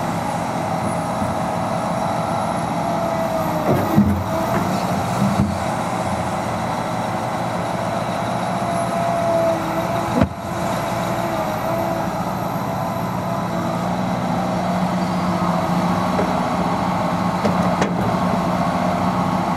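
Liebherr 926 crawler excavator at work: its diesel engine runs steadily under load, with a hydraulic whine that wavers in pitch as the boom and bucket move. A few sharp knocks sound around four, five and ten seconds in.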